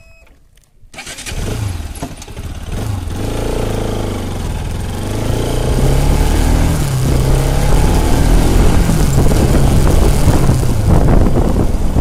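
A motor vehicle's engine pulling away from a standstill and accelerating, its note rising and falling as it gathers speed, with wind and road noise growing louder.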